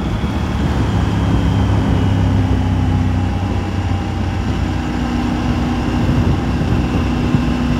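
Triumph Tiger 900's three-cylinder engine running steadily under a dense, even rush of road and wind noise.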